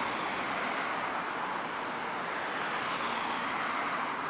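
Boeing 787-8 airliner's turbofan engines running at approach power as it passes low overhead on landing: a steady jet rush, with a faint high whine falling in pitch in the first second.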